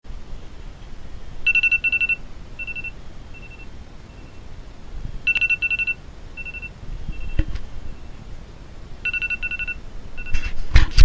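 Phone alarm going off: a high beeping tone that repeats in three cycles a few seconds apart, each a quick cluster of beeps followed by single beeps that fade. Near the end a few sharp knocks and rustles of handling.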